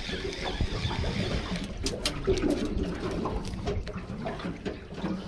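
Water sloshing and splashing against a small boat's hull, with a run of sharp clicks and knocks starting about two seconds in.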